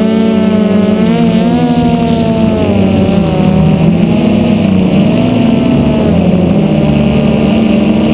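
DJI F450 quadcopter's brushless motors and propellers running in flight, heard close up from the drone's onboard camera: a loud, steady buzz whose pitch wavers up and down as the throttle shifts.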